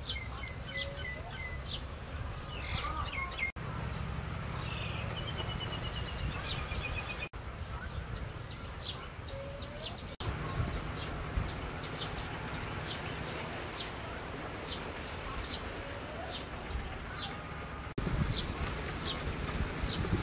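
Outdoor garden ambience: birds chirping, with a short high call repeating roughly once or twice a second and a few trilled phrases, over a steady low rumble. The sound drops out briefly four times.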